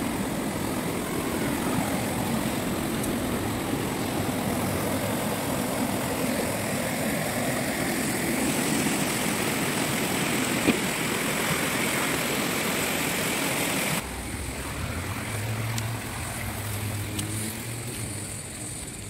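Stream water rushing, a steady full rushing noise with low rumbling under it; about fourteen seconds in it drops abruptly to a quieter rush with a faint low hum.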